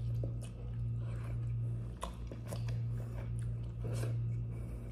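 A person biting and chewing crunchy scorched rice (dokot), with scattered crisp crunches, over a steady low hum.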